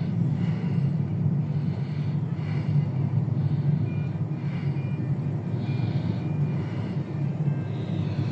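Steady low rumble of a car's engine and tyres heard inside the cabin while driving slowly, with a faint hiss higher up that swells and fades about once a second.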